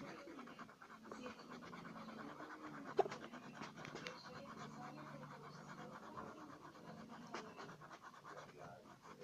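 Colored pencil shading back and forth on paper, a faint rapid scratching, with one sharp click about three seconds in.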